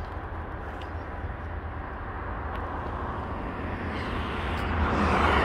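TasRail TR-class diesel-electric locomotive approaching at the head of an empty cement train, its rumble growing steadily louder.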